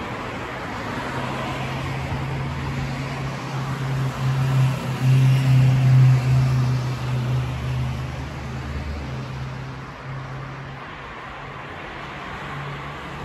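A motor vehicle's engine humming as it goes by, a steady low tone that builds to its loudest around five seconds in and then fades, over a wash of traffic noise.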